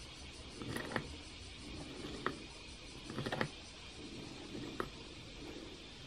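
Hand-worked wooden cat-in-a-box automaton: the hinged lid opening and closing and the carved cat rising and sinking give a handful of short wooden clicks and knocks with light creaking, the busiest clatter about three seconds in.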